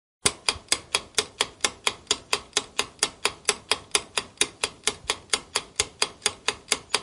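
Countdown timer sound effect: sharp, clock-like ticks at a steady four or so a second, starting a moment in as the round's timer begins.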